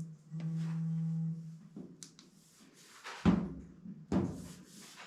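A smartphone vibrating on the metal top of a clothes dryer, a steady low buzz lasting about a second that signals a sensor alert, followed by two knocks about three and four seconds in, the first the loudest.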